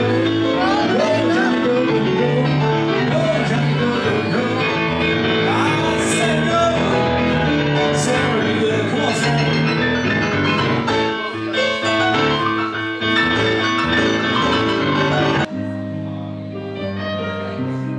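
Background music with a singing voice over instruments. About fifteen seconds in it cuts abruptly to a quieter passage.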